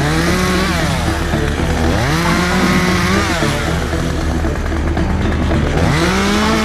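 Chainsaw revving three times: each time the engine note climbs quickly, holds for about a second, then drops back, over steady background music.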